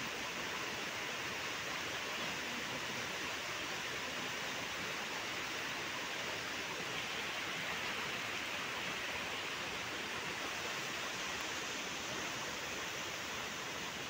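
A steady, even rushing noise with no separate events in it.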